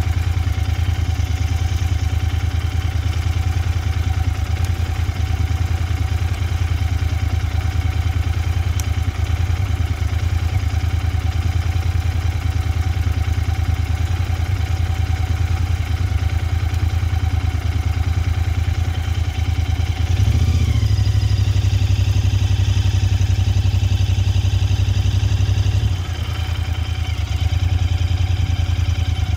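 Royal Enfield Interceptor 650's parallel-twin engine running at low speed on a slow ride. It grows louder about two-thirds of the way through as the throttle opens, eases off briefly near the end, then picks up again.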